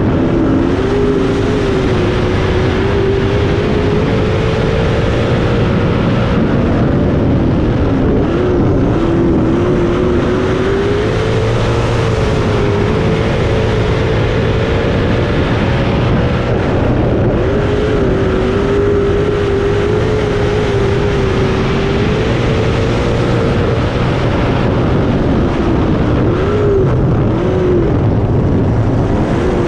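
305 sprint car's V8 engine under racing load, heard from a camera mounted on the car: the engine note rises and falls several times as the car drives the straights and lifts for the turns, over a constant rumble of wind and track noise.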